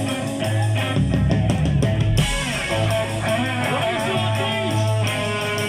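Rock music with guitar over a repeating low bass note.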